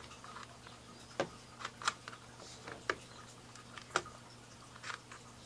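Light, irregular clicks and taps of a red dot sight's mount being seated on a rifle rail and its thumb screw tightened, about eight in all, the sharpest about a second in and near four seconds.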